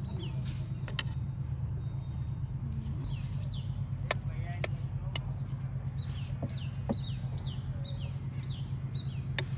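Metal serving spoon clinking a few times against a steel cooking pot and plate as biryani is dished out, with birds giving short falling chirps over a steady low hum.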